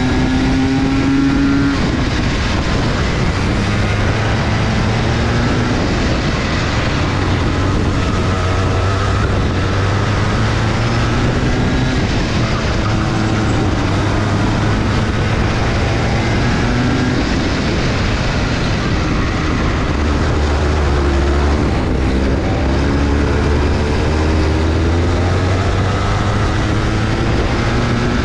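Go-kart engine running at race pace, rising in pitch each time it accelerates and dropping back as it slows, over and over, over a constant rushing noise.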